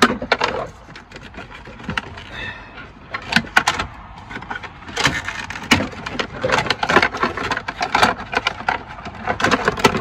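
Plastic dashboard panel and wiring connectors clicking, knocking and rattling as the panel's clips are worked loose by hand. It is an irregular string of sharp clicks, busier in the second half.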